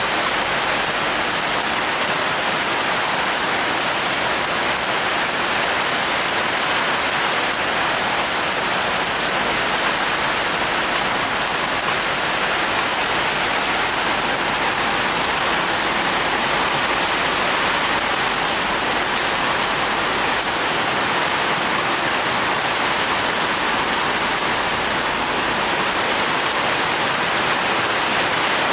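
Heavy rain pouring steadily onto garden trees and plants, a dense, even hiss that neither swells nor fades.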